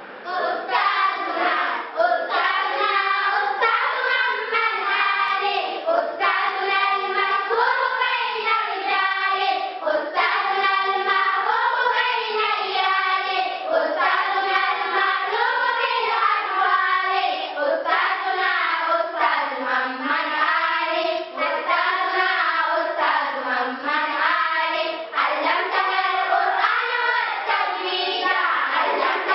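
A group of young girls singing an Islamic song (nasheed) together, without instruments.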